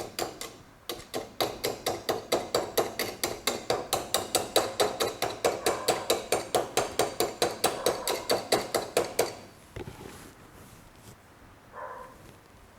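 Rapid, even series of sharp taps or strikes, about five a second, that stops abruptly about nine seconds in.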